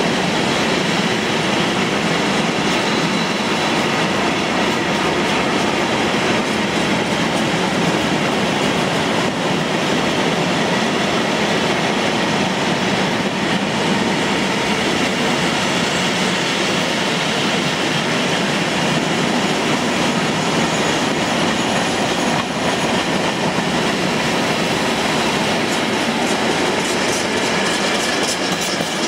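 Long freight train of open box wagons and tank wagons rolling past, a steady loud rumble and rattle of wagons and wheels on the rails.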